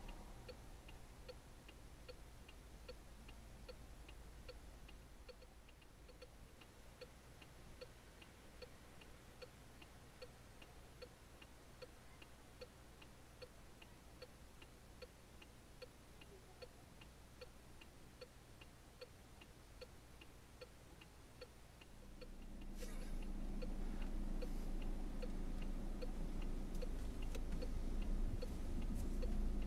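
A car's indicator flasher relay clicking in an even, steady rhythm inside the stopped car's cabin. About twenty-two seconds in, a car engine starts and runs at idle under the clicking.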